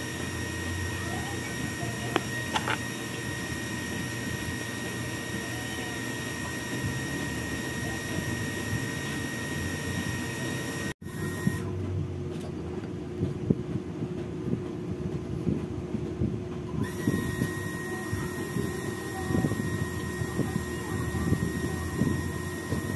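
A steady whine with a low hum from a running machine or appliance. After a brief dropout about eleven seconds in, frequent small taps and scrapes come from a paper firework tube being filled and packed by hand.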